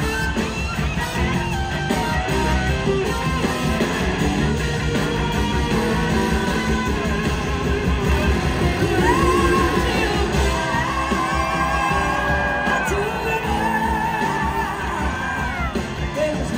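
Live rock band playing, with a horn section of trombone, trumpet and saxophone over electric guitar and a steady beat, heard from the audience.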